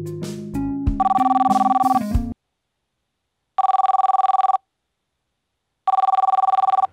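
Piano playing that breaks off about two seconds in. Over its end an intercom handset starts ringing with a warbling electronic two-tone ring, in three bursts of about a second each.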